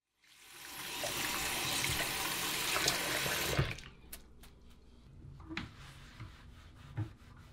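Water running from a bathroom sink faucet while hands are washed, stopping abruptly about three and a half seconds in; a few light clicks and knocks follow.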